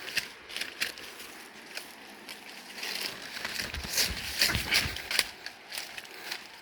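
Footsteps crunching on a forest trail: irregular crackling steps, with a louder, denser run of crunching and low thumps a little past halfway.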